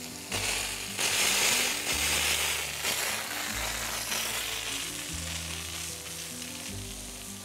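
Garden hose spray hitting a wooden slab: a steady watery hiss that starts just after the beginning, is loudest for the next couple of seconds, then slowly fades. Background music with low held notes plays underneath.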